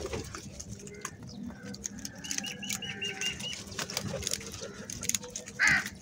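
A flock of house crows feeding on scattered grain on concrete, with many short taps of beaks pecking the ground. A quick run of high chirps comes about two seconds in, and one loud crow call is heard near the end.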